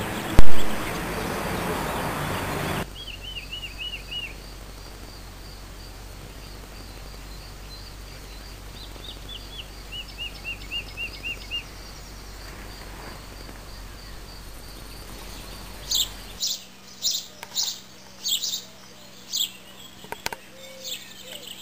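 Birds singing: a quick run of short repeated chirps a few seconds in and again around ten seconds, then a louder series of high, sharp calls in the last few seconds. Before that, a loud bump about half a second in over steady background noise.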